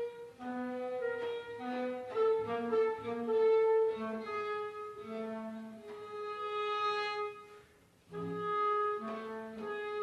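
Contemporary chamber music played live by clarinet, violin, viola, cello and double bass: long held, overlapping notes, with the strings written to take on the clarinet's tone colour so the ensemble sounds like one blended instrument. The sound thins almost to nothing briefly near the end, then the notes come back in.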